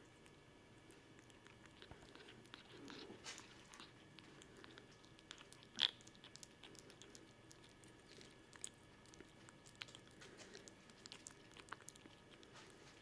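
Kitten eating soft wet food from a plate: faint, quick smacking and licking clicks, with one sharp louder click about six seconds in.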